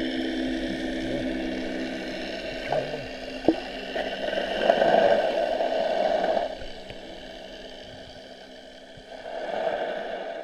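Underwater recording: a motorboat engine's steady drone carried through the water, with swells of rushing, bubbling water over the microphone about halfway through and again near the end, and a couple of faint clicks.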